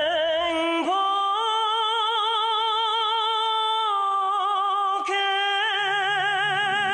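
A woman singing long held notes with wide vibrato in a Korean song over light accompaniment. The voice breaks for a breath about five seconds in, then holds the next note.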